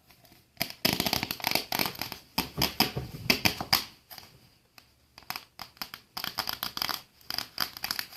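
Crinkling and crackling of material being handled, a dense run of sharp crackles that eases off for about a second around the middle, then starts again.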